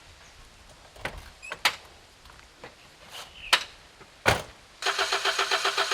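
A few sharp clicks and knocks, then, from nearly five seconds in, a car engine cranking on its starter motor in a steady rhythm, about seven beats a second, without catching.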